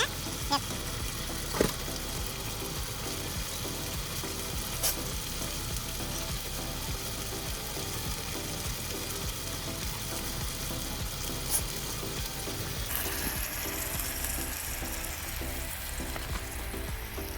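Food frying in a pan, a steady sizzle, with a few sharp clicks of utensils against the cookware.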